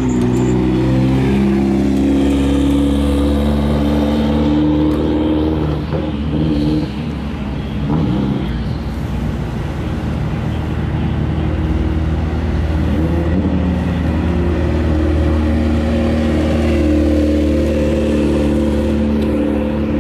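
Race car engines running at low revs in the pit lane, a steady drone whose pitch shifts now and then. Right at the start one car's note falls as it drives off.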